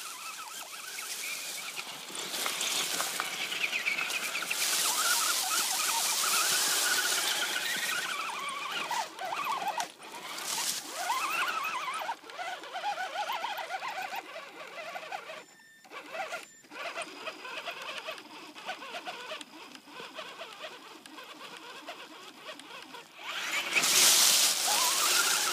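Axial Wraith RC rock racer's electric motor whining up and down in pitch with the throttle, with bursts of tyres scrabbling on dirt, loudest in the first third and near the end. The owner calls the motor bad and weak.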